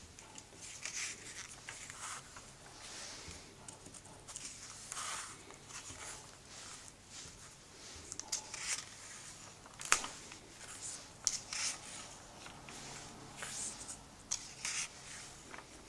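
Comic book pages being turned and smoothed flat by hand: paper rustling and swishing in short strokes, with one sharp snap about ten seconds in.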